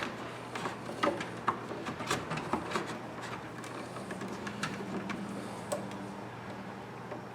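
Electrical cable being pushed and worked into a switch box: irregular small clicks, taps and scrapes of the sheathed wire against the box, over a steady low hum.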